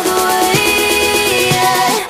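Electronic pop music with sung vocals and a steady beat.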